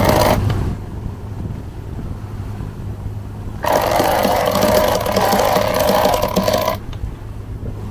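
A sailboat's self-tailing sheet winch being cranked with a winch handle, ratcheting fast in two spells: one stopping about half a second in, the other from under four seconds in to nearly seven.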